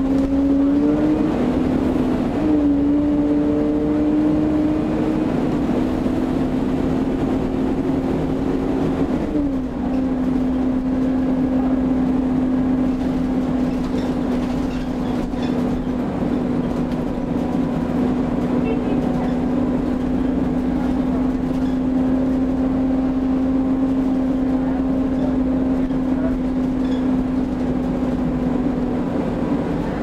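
Volvo B7TL double-decker bus with a ZF automatic gearbox, heard from on board: a steady drivetrain whine over a low engine rumble. The whine rises and drops in pitch several times in the first ten seconds as the gears change, then holds level as the bus cruises.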